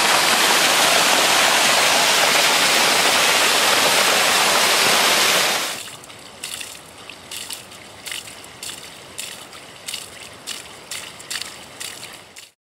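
Fast-running hillside stream rushing loudly, dropping away sharply about six seconds in; then a much quieter trickle of water in a grassy ditch, with light ticks about twice a second.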